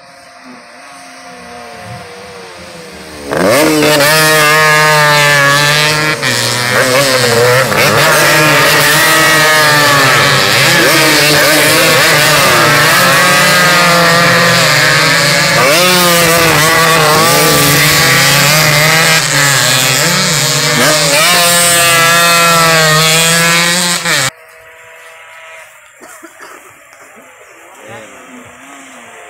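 Two-stroke race motorcycle engines revving hard, their pitch rising and falling with throttle and gear changes. Loud from about three seconds in, then cut off abruptly about 24 seconds in, leaving fainter engine sound.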